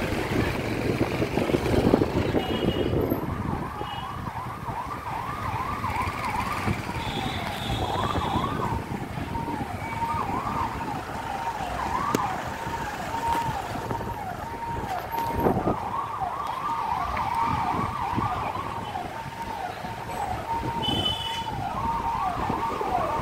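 Electronic vehicle siren sounding a fast, repeating up-and-down yelp, two or three sweeps a second, starting about three seconds in, over the low rumble of slow street traffic.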